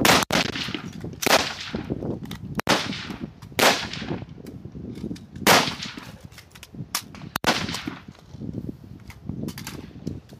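Rifle fire along a firing line during a rapid-fire string: about half a dozen loud shots at uneven intervals, each with a short echo, and fainter shots between them. The shots thin out after about eight seconds.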